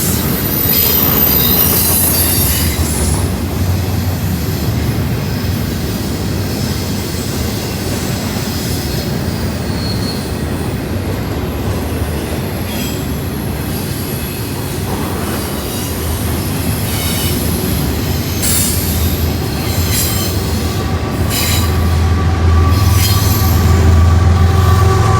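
Cars of a CSX intermodal freight train rolling past on the rails, a steady loud rumble with short high wheel squeals now and then. Near the end a low engine-like hum grows louder.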